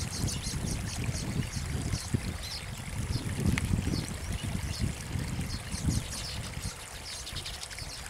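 A baya weaver colony chattering, with many short, high chirps overlapping throughout, over a low rumbling noise.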